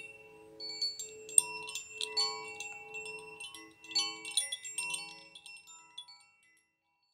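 Metallic chimes ringing in an irregular, overlapping tinkle of struck notes that die away and stop about six seconds in.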